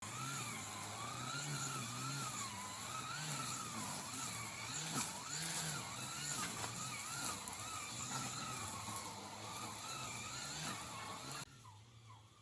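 A motor running steadily, its pitch wavering up and down, over a constant hiss. It drops suddenly to a quieter level about eleven seconds in.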